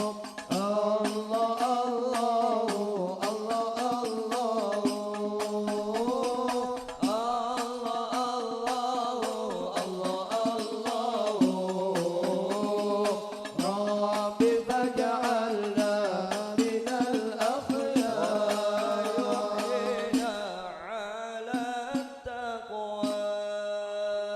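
Sholawat, an Arabic devotional song praising the Prophet, sung with hadrah frame-drum accompaniment: a melismatic vocal line over a steady, fast pattern of drum strokes. The drumming thins out near the end while the singing holds a long note.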